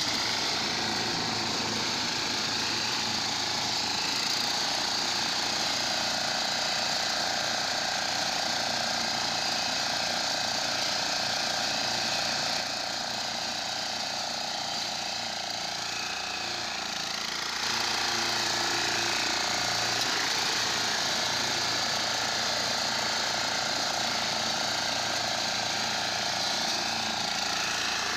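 Walk-behind power reaper running as it cuts standing crop: its small engine's steady drone with the rapid clatter of the reciprocating cutter bar. The sound dips for a few seconds in the middle, then comes back up.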